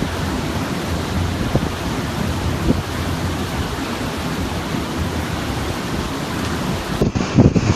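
Steady rushing noise of a storm: strong wind and heavy surf, with no distinct events. Near the end it switches abruptly to louder, gusty wind buffeting the microphone.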